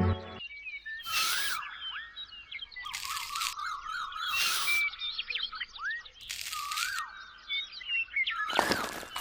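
Small birds chirping and twittering, with five short bursts of a harsh, rasping noise spaced a second or two apart.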